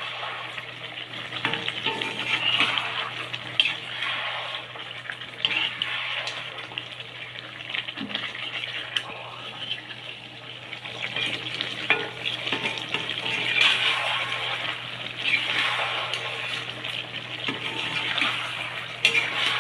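Spiced chicken sizzling in a pan of hot oil while being stirred, a spoon scraping and clicking against the pan now and then.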